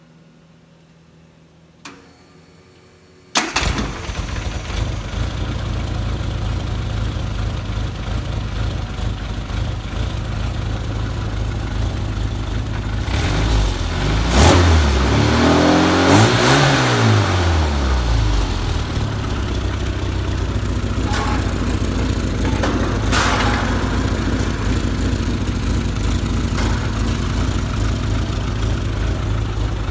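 A Classic Mini's 1380 cc A+ A-series four-cylinder engine, running on a test stand, starts suddenly about three seconds in and idles. About halfway through it is revved up by hand and falls back, then settles to a steady idle.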